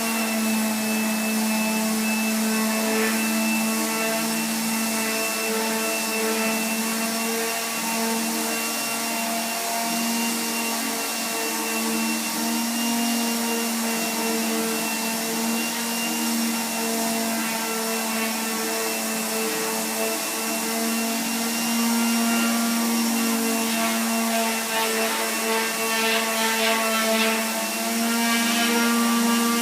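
Electric power sander running steadily on wood: a constant motor hum over a whirring hiss, with some scratchier rasping near the end.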